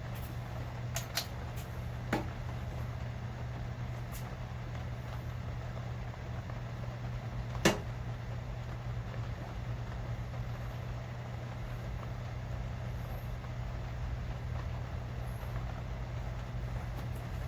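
Steady low background hum with a few faint clicks, and one sharp click about eight seconds in as the work light's magnetic base snaps onto metal.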